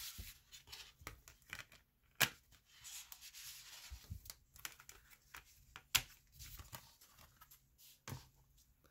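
Hands handling a plastic 4K Blu-ray case and its disc, with sharp plastic clicks about two seconds in, near six seconds and again near eight. Between the clicks there is rubbing and scraping of plastic as the case is closed and slid back into its cardboard slipbox.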